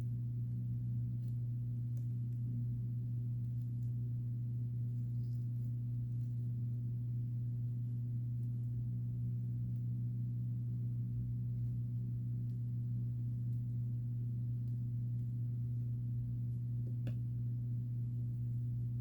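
A steady low-pitched hum with a faint overtone above it, unchanging throughout, and a few faint light clicks, the clearest near the end.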